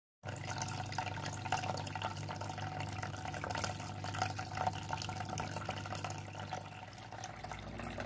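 Small homemade plastic-bottle fountain running: water spilling from one cut bottle over a second and falling into a plastic basin, splashing and trickling steadily, with a low steady hum underneath.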